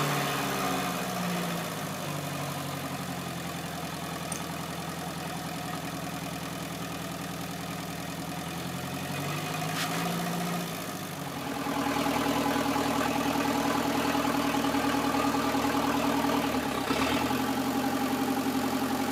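Engine of a truck-mounted water-well drilling rig running steadily while the rig's mast is raised upright. The engine speeds up briefly about ten seconds in, then from about eleven seconds in runs louder and steadily at higher revs.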